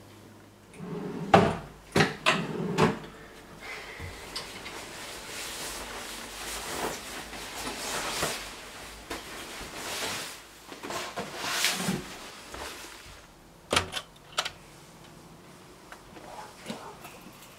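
Nylon puffer jacket rustling as it is put on, with a few sharp knocks and clicks, loudest about a second in.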